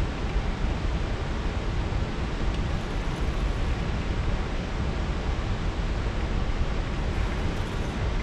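Steady rushing noise of wind and water, heaviest in the low end, with no distinct events.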